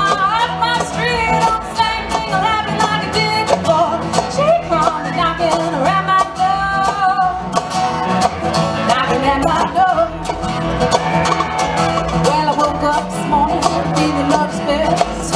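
A live band playing a country-style song on acoustic guitars, electric guitar, upright bass and drums.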